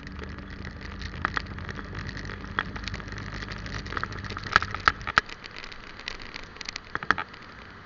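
A vehicle engine running with a steady low hum that cuts off suddenly about five seconds in. Scattered sharp clicks and crackles are heard throughout, with a cluster of louder ones just before the engine stops and again near the end.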